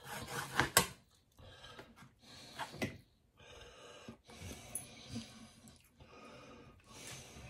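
A knife and hands working sliced prime rib on a wooden cutting board: soft scraping and handling noises with a few sharp knocks, the loudest a little under a second in.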